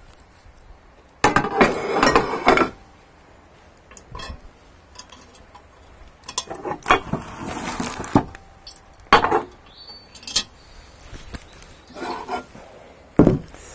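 Cast iron Dutch oven cookware being handled: a series of metal clanks, knocks and clinks as the pot of hot frying oil is moved aside and lids are handled. The loudest clatter comes about a second in, with further scattered knocks and clinks through the rest.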